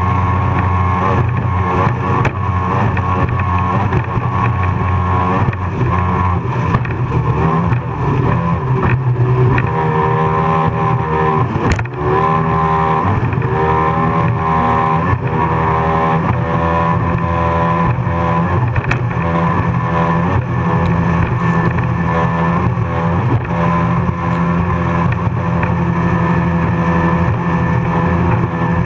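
Offshore racing powerboat's engine running at high speed, its note rising and falling as the boat rides the waves, over a rush of wind and water. A single sharp knock comes about twelve seconds in.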